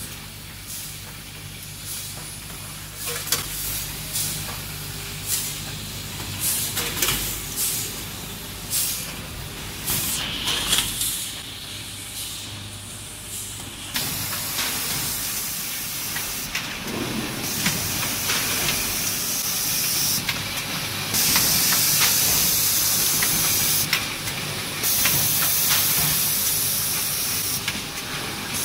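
Coffee-bean packaging line running: the multihead weigher's stainless hoppers clack open and shut about once a second over a low machine hum. About halfway through, a loud high hiss takes over, stopping and starting in stretches of a few seconds.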